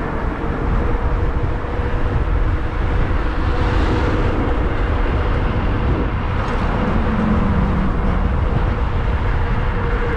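Wind rushing over the microphone of a moving e-bike, with road and tyre noise and one steady faint whine underneath.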